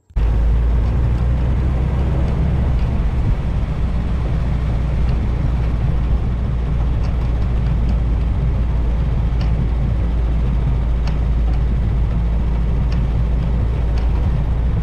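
Vintage Willys Jeep driving with its windshield folded down: a steady engine and low wind rumble, with faint light ticks now and then.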